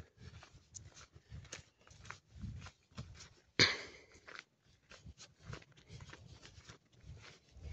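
Footsteps on a dirt forest path, soft thuds about twice a second with light crunching and crackling underfoot, and one louder, sharper crackle a little past halfway.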